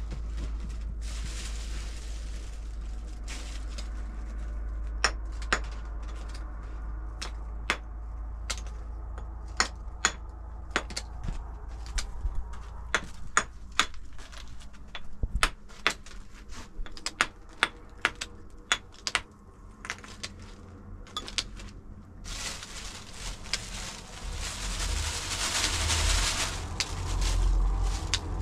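Sharp, irregular cracks and clicks, one or two a second, as a small hand tool breaks up white lumps on a cloth. Near the end a louder, even rushing sound takes over.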